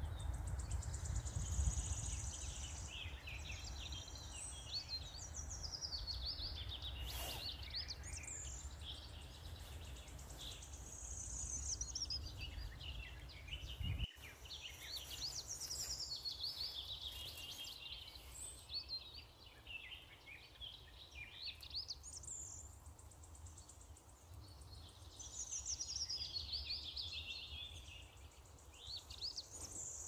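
Small songbirds singing, with quick high chirps and falling trills that come and go in bouts, over a low steady rumble.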